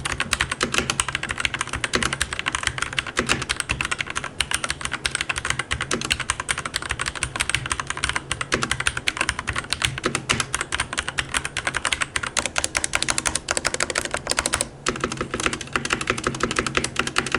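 Fast typing on a Keychron C1 mechanical keyboard with linear Gateron Red switches: a dense, continuous run of keystroke clicks, with a brief break near the end.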